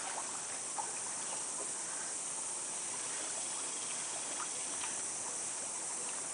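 Steady high-pitched hiss of outdoor background noise, of the kind made by insects chirring or water trickling, with a few faint ticks.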